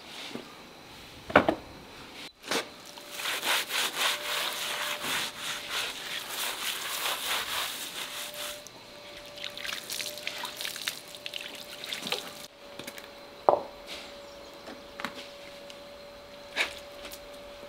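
A heavy flat stone knocks down onto a wooden stool, then is scrubbed hard with a handful of straw and water, a dense scratchy rubbing that eases to lighter scraping and wet splashes. A sharp stone knock comes about two-thirds of the way through.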